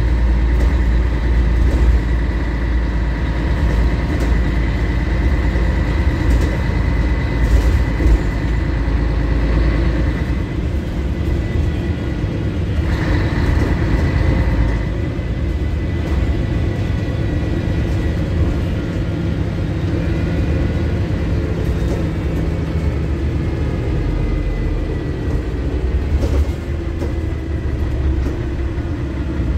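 Scania L113CRL bus under way, heard from inside the passenger cabin: the rear-mounted 11-litre six-cylinder diesel and drivetrain running with a steady low rumble and a thin, constant high whine over it, and a brief hiss about 13 seconds in.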